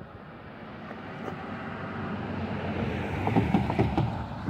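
A road vehicle passing close by, its tyre and engine noise building steadily and peaking near the end, with a cluster of short knocks toward the end.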